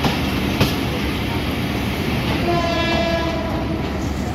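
Rumble and rattle of a slow-moving passenger train heard from inside the carriage at the open door, with one sharp knock about half a second in. A train horn sounds for about a second and a half in the middle.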